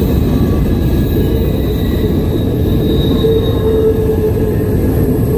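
Freight train boxcars rolling past close by: a steady, loud rumble and clatter of steel wheels on the rails, with a faint wheel squeal coming and going.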